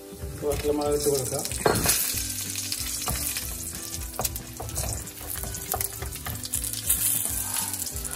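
Cashew nuts frying in shallow oil in a wok, sizzling steadily while a wooden spatula stirs and scrapes them with short clicks against the pan; dried Kashmiri chillies go into the oil partway through.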